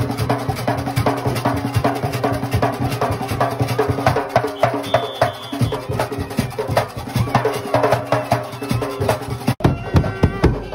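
Large hand drum with a painted head beaten fast with both hands in a steady, driving rhythm. The sound breaks off abruptly near the end.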